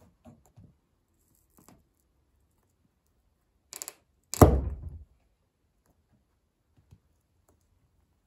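A stiletto boot heel bears down on a wooden pencil on a hard floor. There are faint creaks, a short crackle just before four seconds in, then one sharp, loud crack with a thud about four and a half seconds in.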